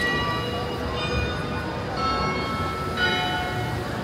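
Bells ringing, with a new strike about once a second, each tone ringing on into the next, over a steady low street rumble.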